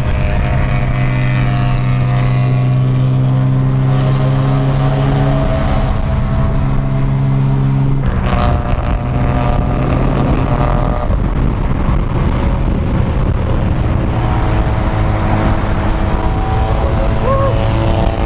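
Car engines running at steady freeway cruising speed, with a strong low drone, tyre roar and wind noise. The engine note changes about eight seconds in and holds steady again after.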